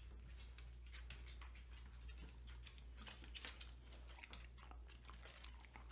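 Dog chewing a crunchy marrow-filled biscuit treat: faint, irregular crunching clicks over a low steady hum.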